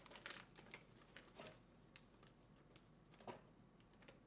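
Faint, scattered plastic clicks and rustles of a soap refill bag and pump being handled and pushed into a wall-mounted dispenser's pump housing.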